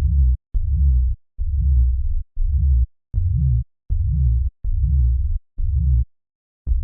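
Electronic dubstep-style music: a deep synth bass pattern of short, chopped notes, about ten of them, each starting with a click. It stops briefly near the end and starts over.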